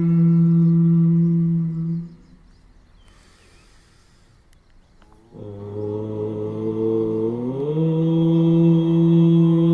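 Voice chanting Om as pranayama practice: a long, steady held Om ends about two seconds in, followed by a pause for breath. The next Om begins about five seconds in, low at first, then slides up and holds a steady pitch.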